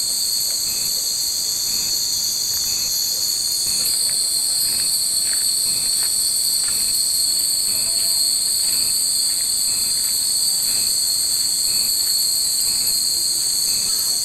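Cicadas droning steadily in the summer trees, a dense high-pitched shrill without pause, with a short note repeating about once a second.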